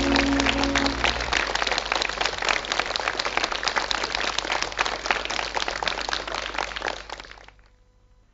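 The last held notes of a sung ballad's accompaniment end about a second in, followed by applause: a dense crackle of clapping that fades out near the end.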